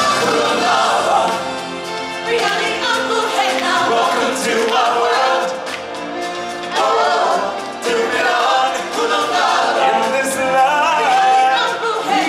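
A choir of stage performers singing a choral number over full backing music, the ensemble phrases swelling and easing, with a brief dip about six seconds in.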